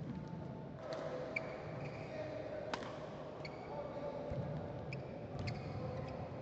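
Badminton rackets striking the shuttlecock, sharp clicks at irregular intervals with the loudest about two and a half seconds in, mixed with short squeaks of players' shoes on the court mat and a faint hall murmur.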